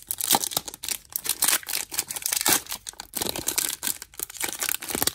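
Foil booster-pack wrapper of trading cards being torn open by hand, crinkling and crackling in a dense run of sharp rustles, with the cards drawn out of the torn pack near the end.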